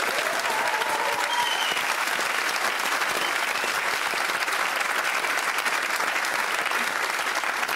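Studio audience applauding steadily: dense, sustained clapping from a large crowd.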